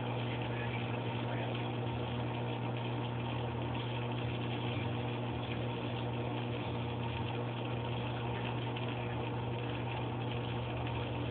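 Steady low electrical hum of an aquarium pump running, even and unchanging.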